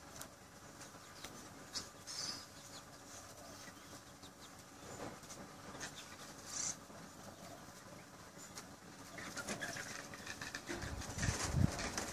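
Faint outdoor ambience with scattered soft clicks and short high chirps, then wind buffeting the microphone in low gusts near the end.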